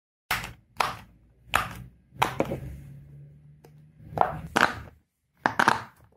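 Silicone pop-it and simple-dimple fidget toy bubbles being pressed by fingers, a series of about nine separate soft pops at uneven intervals.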